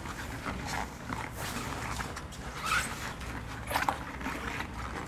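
Dry sponge cloth in a rubber-gloved hand wiping around the inside of a plastic water-dispenser reservoir: faint rubbing and scrubbing strokes, a few of them briefly louder.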